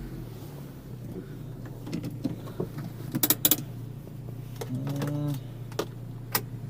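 Acura CSX's four-cylinder engine idling with a steady low hum, with a few sharp clicks about three seconds in and another near the end.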